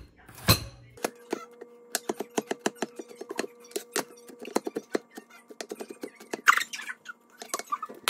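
Chinese cleaver chopping garlic on a cutting board: quick, repeated knocks of the blade on the board, about four a second. About six and a half seconds in, a louder scrape as the blade gathers up the minced garlic.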